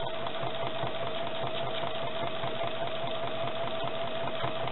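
Sewing machine running steadily at speed while free-motion quilting through a quilt sandwich: a steady motor whine over the fast, even rhythm of the needle stitching.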